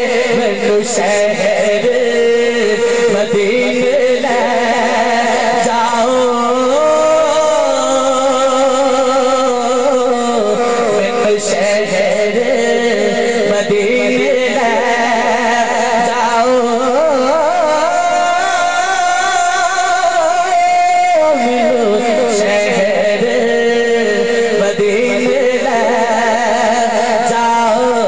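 Male voice singing a naat in long, drawn-out melismatic notes that waver and glide, over a steady drone.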